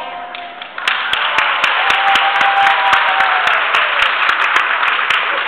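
Applause from many hands starts suddenly about a second in and keeps on as a steady, dense clatter of claps.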